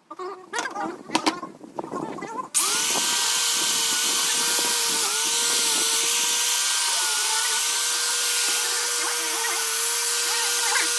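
A few irregular knocks and clatters, then about two and a half seconds in a power tool starts up and runs steadily. Its motor whine sags briefly now and then, as if under load, over a loud hiss.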